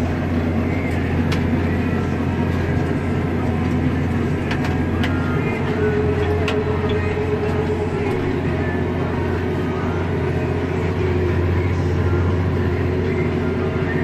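Claas Axion tractor's diesel engine running steadily under ploughing load at about 1,800 rpm, heard from inside the cab as an even low drone. A few faint clicks and rattles are heard over it in the first half.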